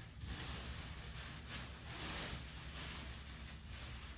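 Soft rustling and handling noise, a hiss that swells and fades several times, as objects are moved about by hand.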